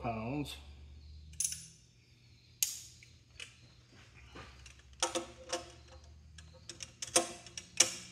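Scattered sharp metallic clicks and clinks from a torque wrench being handled and fitted onto the fuel injection pump's shaft nut, a few ringing briefly. The loudest clicks come near the end.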